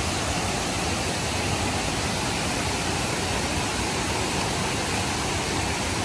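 Cascades of the Kuang Si waterfall rushing steadily, an even, unbroken hiss of falling water.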